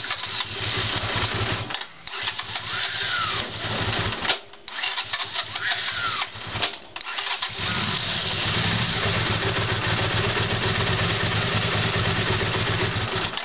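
Honda CX500 V-twin being cranked on its electric starter in three short tries, with a screaming starter whine and a clacking sound: the engine kicking back against the starter motor for lack of a good ignition. About seven and a half seconds in it catches and runs steadily at an idle a little too slow.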